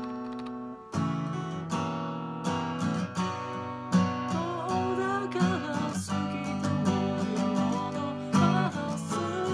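Square-shouldered dreadnought steel-string acoustic guitar strummed in chords. A chord rings out and fades for the first second, then steady rhythmic strumming picks up again.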